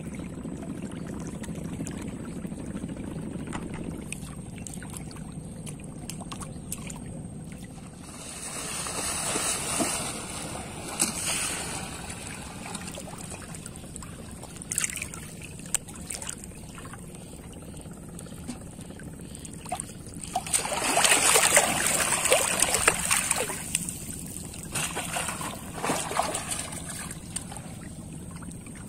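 Water sloshing and splashing in several bursts as a person wades through shallow, reedy water. The longest and loudest stretch comes about two-thirds of the way through.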